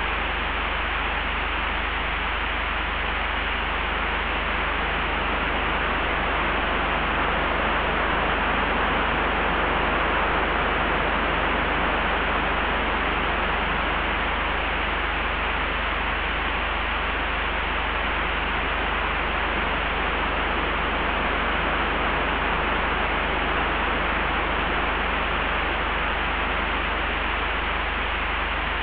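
Layered wind ambience: a steady rushing hiss that swells gently about ten seconds in, over a constant low rumble.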